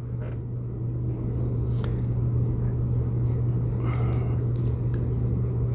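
A steady low hum over a low rumbling background noise, with a faint click about two seconds in.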